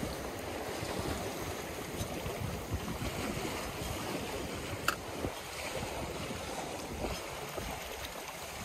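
Wind buffeting the microphone and choppy water washing along the hull of a small sailing yacht under sail, a steady rushing noise with one short tick about five seconds in.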